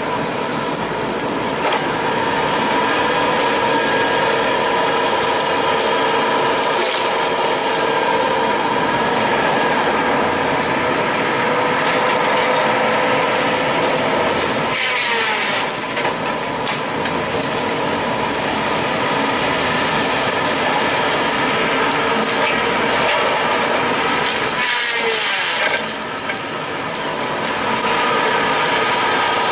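Cat 522 tracked feller buncher running, its diesel engine and spinning disc-saw felling head giving a steady high whine. The sound sags and slides down in pitch briefly about halfway through and again near the end.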